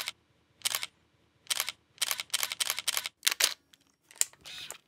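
DSLR camera shutter firing: single shots about a second apart, then a quick run of about five frames in under a second, a few more shots, and a short steady whir near the end.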